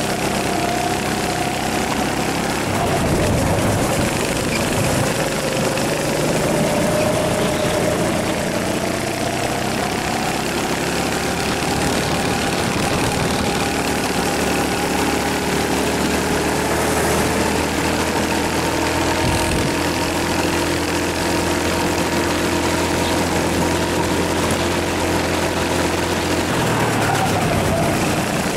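Rental kart engine running hard from an onboard camera, its pitch rising and falling as the driver accelerates and lifts through the corners.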